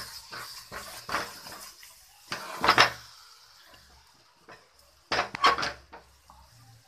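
A wooden spatula scrapes and knocks against a metal kadhai while turning thick, dried-down carrot barfi mixture. It comes in short bursts, the loudest around three seconds in and another past five seconds.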